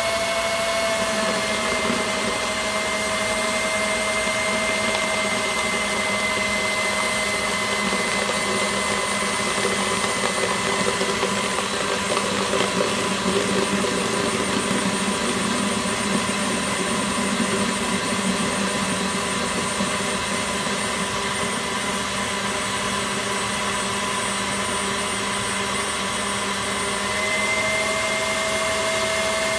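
KitchenAid Artisan stand mixer running at high speed, its wire whisk beating eggs and sugar while hot sugar syrup is poured in. It gives a steady motor whine whose pitch sags slightly about a second in and comes back up near the end.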